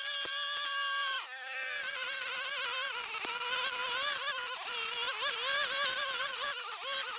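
String trimmer running at full speed, a high steady whine. From about a second in, the pitch wobbles up and down as the spinning line cuts into thick, tall grass and the motor loads and recovers.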